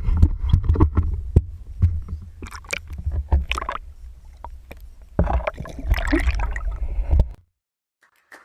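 Water splashing and sloshing with knocks and a low rumble as a bass is let go into the pond close to a GoPro. The sound cuts off abruptly near the end.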